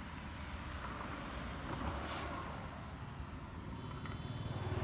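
Motorcycle engine running while riding along a highway, a low steady hum.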